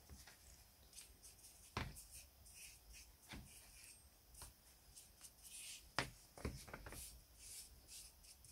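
Soft, faint brush strokes as a paintbrush spreads liquid over a pestle, with a few sharp knocks as the pestle is turned and set against a steel checker plate.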